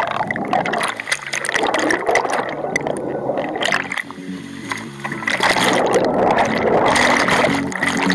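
Churning, gurgling pool water rushing over the microphone of a waterproof action camera held in turbulent water, with a steady music track faintly underneath.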